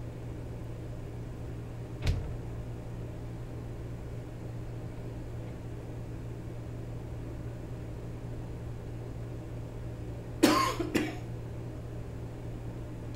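Hands working the dials on an LED light panel: a single sharp click about two seconds in and a loud double burst of handling noise about ten and a half seconds in, over a steady low hum.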